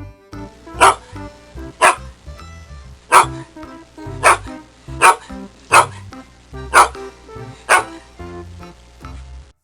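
A dog barking eight times, roughly once a second, loud single barks over a bouncy children's music track.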